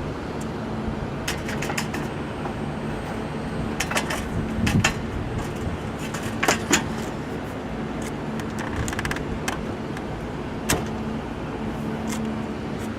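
HVAC unit running with a steady mechanical hum and a low tone. Several sharp clicks and metallic knocks sound over it, the loudest a cluster around four to five seconds in and a pair about six and a half seconds in, with another single knock near eleven seconds.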